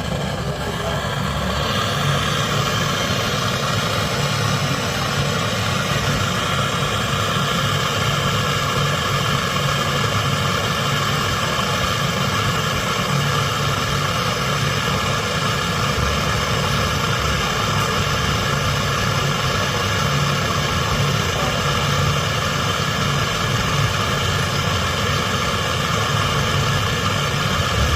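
A motor-driven machine running loudly and steadily, a low pulsing hum under a set of steady higher tones.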